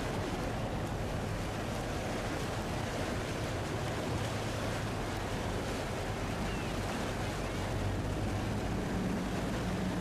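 Steady wash of water and wind from a boat under way, with the low drone of an outboard or inboard engine beneath it and wind buffeting the microphone.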